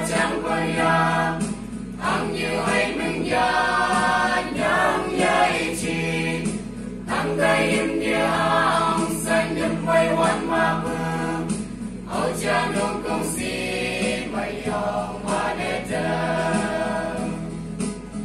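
A mixed choir of young men and women singing a students' union anthem in harmony, with short breaks between phrases.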